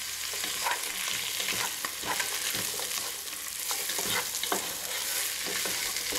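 Diced potato, carrot, celery, chorizo and sausage sizzling as they fry in a metal pot, stirred with a wooden spoon: a steady hiss with frequent irregular scrapes and knocks of the spoon against the pot.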